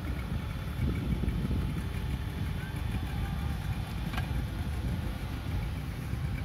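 An engine idling with a low, steady rumble, with one short click about four seconds in.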